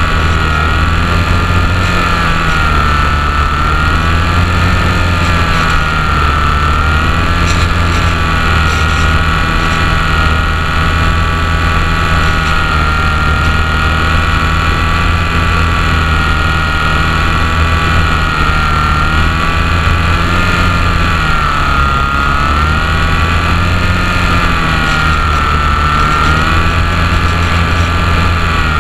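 Electric motor and propeller of a HobbyZone Champ RC plane whining steadily, heard from a camera riding on the plane, the pitch wavering slightly up and down.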